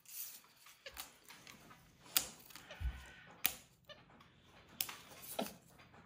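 Nail files tapping and scraping on a hard countertop as a monkey handles them: four sharp taps about a second and a bit apart, with scratching between.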